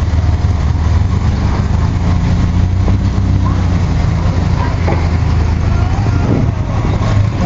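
Classic car engines idling and rumbling low and steady as a line of cars crawls past at walking pace, with onlookers' voices faintly behind.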